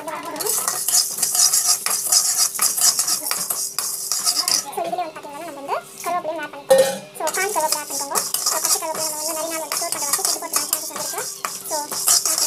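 A steel spatula scrapes and stirs split lentils and curry leaves roasting in a metal pan, with repeated scraping strokes and the grains rattling and hissing against the metal.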